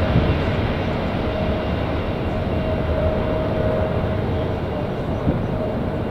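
Jet airliner climbing out after takeoff: the steady noise of its twin turbofan engines, with a faint steady tone over it, slowly fading as it moves away.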